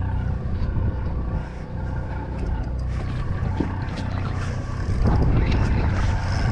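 Steady low hum of a boat's machinery. A broad rushing sound grows louder about five seconds in, with a few faint clicks before it.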